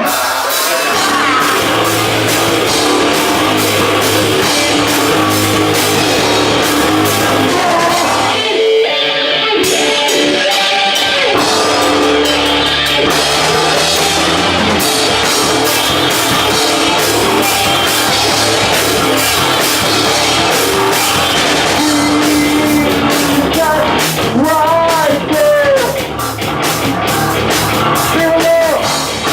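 Rock band playing a heavy song live: drums, electric guitar and a singer. The band drops back briefly about eight and a half seconds in, then comes back in full.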